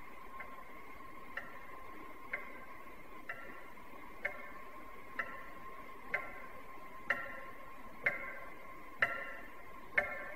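Time bomb's clock timer ticking about once a second, the ticks growing steadily louder, over a steady high tone.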